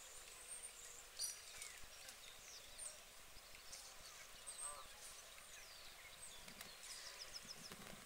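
Faint bird calls: scattered high chirps and twitters from small birds, a short lower call about halfway through, and a quick run of high notes near the end.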